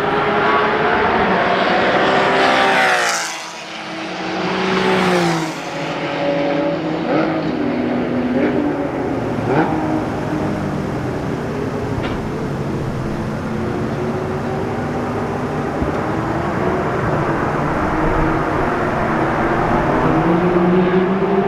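A sports car engine revving hard, its pitch climbing for about three seconds and then falling away sharply as the car passes or shifts. A second short rise follows, then the engine runs lower with the revs wavering, climbing again near the end.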